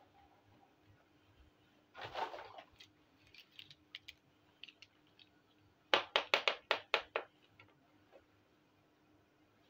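Small plastic toy kitchen pieces handled by hand: a brief rustle about two seconds in, a few light clicks, then a quick run of about eight sharp plastic clicks and taps near the middle.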